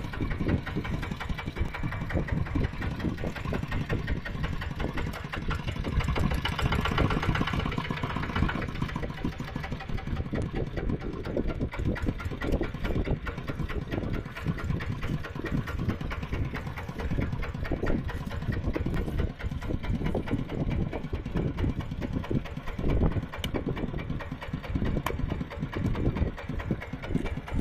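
Mini tractor's engine running steadily with a fast, even chugging beat, getting louder for a few seconds about a quarter of the way through.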